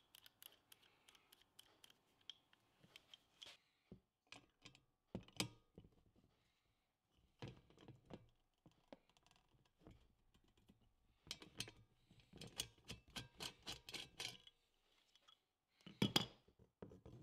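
Quiet metallic clicks and ticks from a hand rivet nut tool as a rivet nut is threaded onto its mandrel, set into a hole in a sheet-metal panel and squeezed home. There is a run of quick clicks about two-thirds through and a louder knock near the end.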